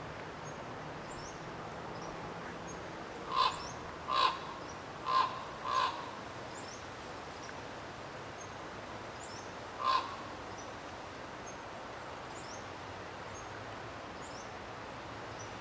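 Crow cawing: four harsh caws in quick succession, then one more about four seconds later. Faint, high, short chirps of a small bird repeat throughout.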